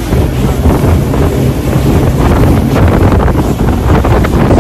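Heavy wind buffeting the microphone on a fast-moving passenger speedboat, over the boat's running engine and the rush of its wake.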